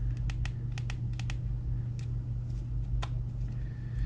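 Irregular small sharp clicks and taps of hand tools and metal parts being handled, bunched in the first second and a half and then spaced out, over a steady low electrical hum.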